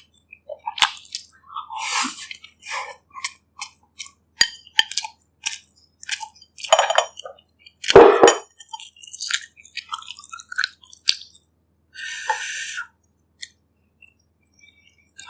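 Close-miked eating of bak kut teh pork ribs and broth: chewing and wet mouth sounds, with sharp clicks and clinks scattered through. The loudest sound comes about eight seconds in.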